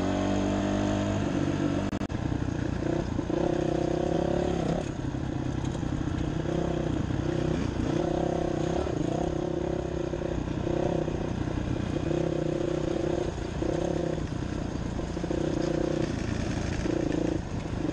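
Dirt bike engine under way, revving up and easing off over and over as the throttle is opened and closed, over a steady rush of wind and road noise.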